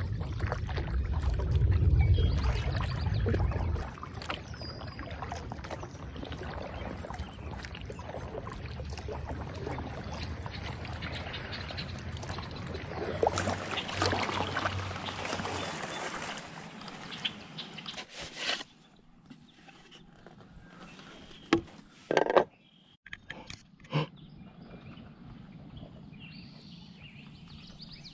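Kayak being paddled through calm lake water: paddle blades dipping, with water splashing and dripping off them, and a heavy low rumble in the first few seconds. After about eighteen seconds it goes much quieter, broken by a few sharp knocks.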